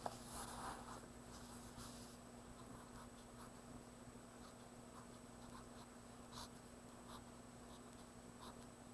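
Faint scratching of a pen or pencil writing out a subtraction, in short scattered strokes, over a steady low electrical hum.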